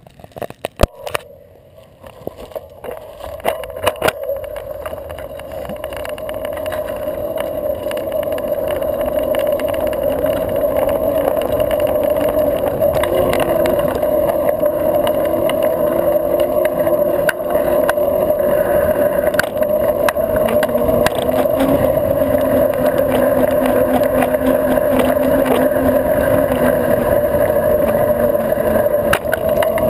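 Mountain bike rolling on asphalt during a long wheelie, heard from a camera by the crank: a steady hum of the knobby tyre and drivetrain, growing louder over the first several seconds as the bike picks up speed. A few sharp clicks and knocks come in the first few seconds.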